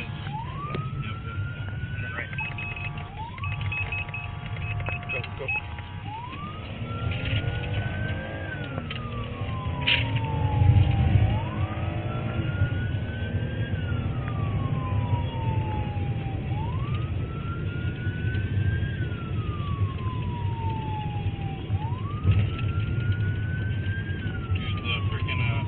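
Police siren in wail mode, each cycle a quick rise and a slow fall, about every five seconds, heard from inside a moving patrol car over steady engine and road rumble. Other sirens sound along with it in the first half.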